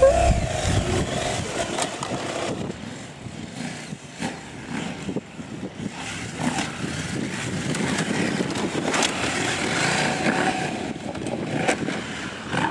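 Husqvarna Norden 901 adventure motorcycle's parallel-twin engine being ridden on grass, getting louder as the bike comes closer and passes, then easing off as it rides away.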